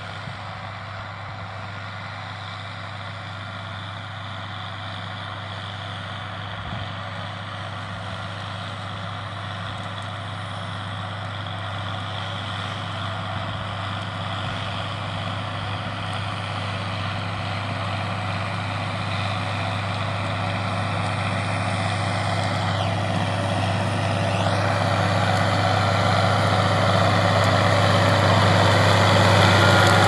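John Deere 6620's six-cylinder diesel engine running steadily under ploughing load while pulling a three-furrow plough, growing gradually louder as the tractor comes closer.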